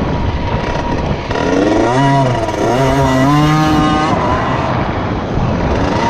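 Motocross bike engine running under throttle, its pitch climbing and dropping as the throttle is worked, strongest from about a second and a half to four seconds in.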